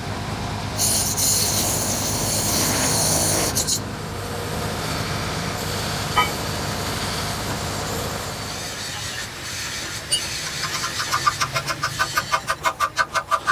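A handheld straight grinder with a small wheel grinding a metal part, with a bright hiss for the first few seconds while the wheel bites, then running on more steadily. About ten seconds in, a hammer starts striking metal rapidly, about three to four ringing blows a second.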